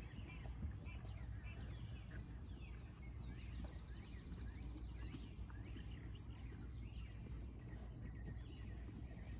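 Small birds chirping, with many short high calls and quick falling notes scattered throughout, over a steady low rumble.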